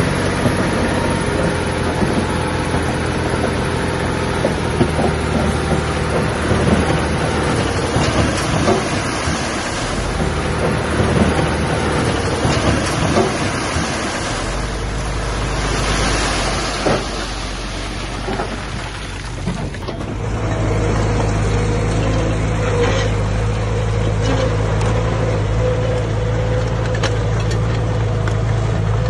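Diesel engines of earthmoving machinery running under load, with scattered clanks and rattles of metal and stone. About 20 seconds in the sound changes abruptly to a steadier, lower engine drone.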